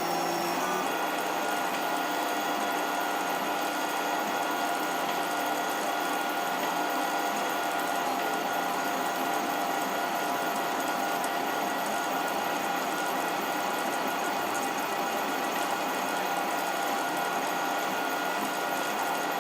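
CoreXY 3D printer running, its stepper motors giving a steady whine of several held tones over a continuous mechanical whirr.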